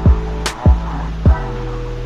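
Background music with a steady beat: low kick-drum thumps, sharp hits and held tones.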